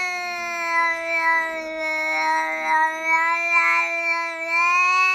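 A cat's single long, drawn-out yowl, held at a nearly steady pitch without a break.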